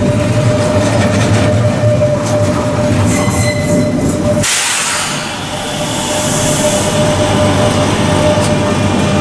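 Renfe Class 447 electric multiple unit moving slowly along the platform: a steady rumble with a constant whine. A little after midway the rumble briefly dips and a high hiss rises for about two seconds.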